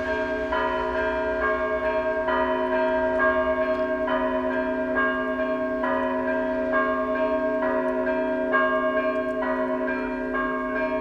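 Orthodox church bells ringing: smaller bells struck in a steady rhythm, a new strike about once a second, over the lasting hum of larger bells.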